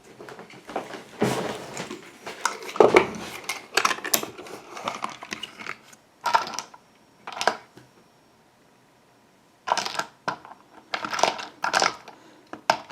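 Clicking and clattering of small hard objects being handled, in quick irregular knocks, with a quiet pause of about two seconds in the middle.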